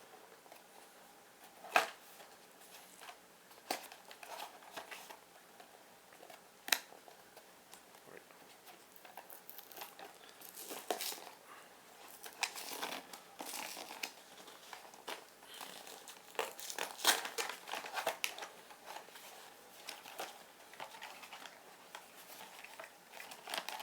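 Blind-box toy packaging being opened by hand: crinkling and tearing in irregular bursts with a few sharp clicks, busiest about halfway through.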